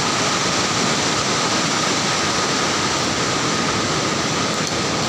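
Floodwater rushing steadily and loudly into a hydroelectric power house.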